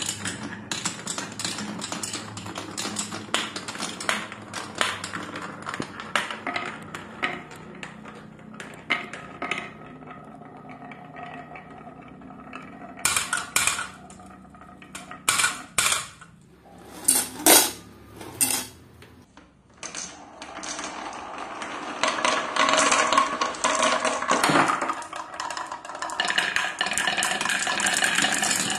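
Marbles rolling and clattering through a wooden marble run: a dense stream of small clicks and knocks as they hit wooden baffles, track edges and each other, with a few louder separate clacks around the middle and a busier rattling run near the end as marbles circle a wooden bowl funnel.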